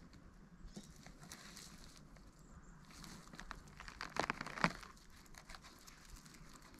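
Dry leaf litter and twigs on a forest floor rustling and crackling under movement, with a louder cluster of sharp crackles about four seconds in.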